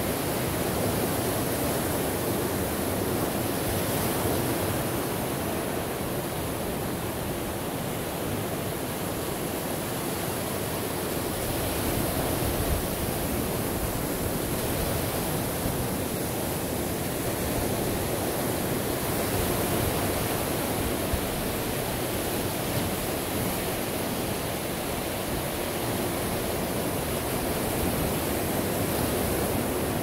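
Ocean surf: a steady rush of waves washing on a shore, swelling and easing slightly.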